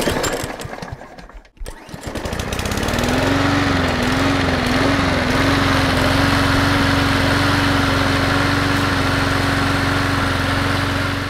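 A small gasoline lawn mower engine starts with a few irregular sputters, then catches; its pitch rises and wobbles before settling into a steady run. It cuts off suddenly near the end.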